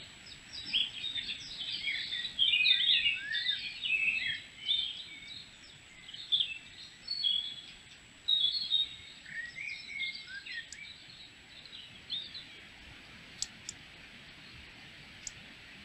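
Wild songbirds chirping and singing, many short overlapping calls that thin out and stop about three-quarters of the way through. A few sharp clicks near the end.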